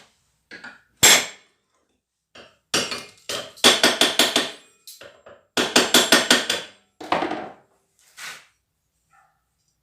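Hammer blows in a workshop: one hard strike about a second in, then two runs of quick strikes at about five a second, and a few lighter knocks near the end.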